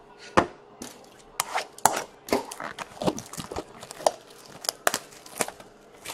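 Plastic packaging of trading card product being crinkled and torn open: an irregular run of sharp crackles and rips.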